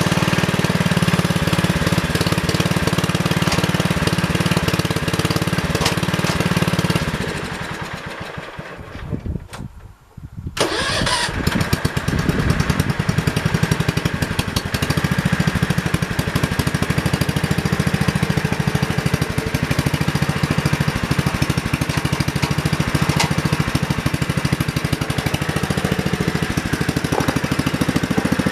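The single-cylinder engine of a 1968 John Deere 110 garden tractor running steadily, then dying down and stopping between about seven and ten seconds in. From about ten and a half seconds in it is running again, steady to the end.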